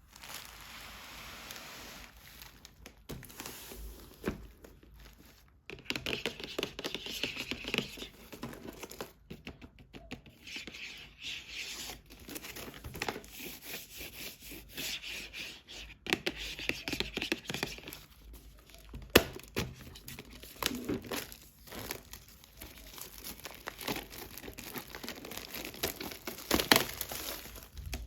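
Toy packaging being unwrapped by hand: crinkling and tearing, with many small clicks and knocks from handling, the sharpest about nineteen seconds in.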